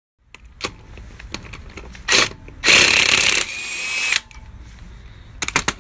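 Power tool running in two short bursts, the second longer and louder and spinning down over about a second, with scattered clicks and clanks of tools around it and a quick cluster of sharp clicks near the end.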